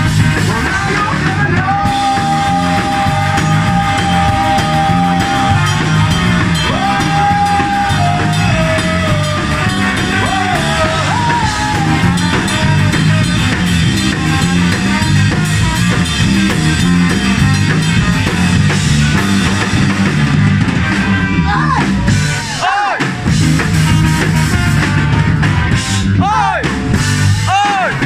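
A live ska-punk band playing loud: guitar, drum kit and trombone with singing. Long held notes ring out over the band in the first eight seconds.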